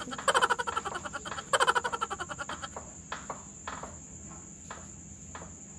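Rapid pulsing croak-like trills come in two loud bursts and die away about two and a half seconds in. They are followed by a handful of sharp clicks from a knife cutting butterscotch bars against a metal baking pan.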